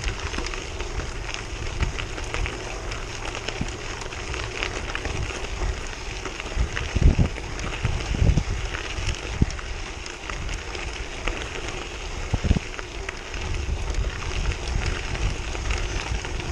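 Bicycle tyres crunching over a loose gravel road, a dense patter of small stone clicks over a steady low rumble, with a few heavier thumps from bumps about seven, eight and twelve seconds in.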